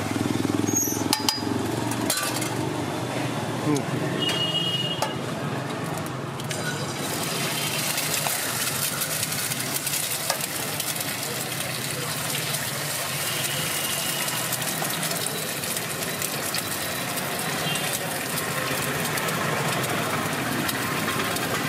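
Eggs frying on a hot flat iron griddle (tawa) with a steady sizzle that sets in about seven seconds in. Before that, a metal spatula scrapes and clinks on the griddle.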